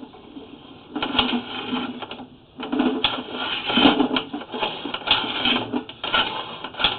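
Flex-shaft drain-cleaning machine spinning its chain cutter inside a clay sewer pipe, a loud irregular rattling clatter that starts about a second in, as the chains cut at tree roots lodged in the line.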